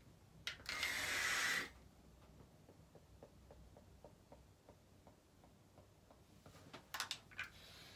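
A vaper's loud hissing breath of about a second through two vape mods, with a faint whistle in it, about half a second in. It is followed by faint, regular ticking about three times a second, and a shorter hissing breath near the end.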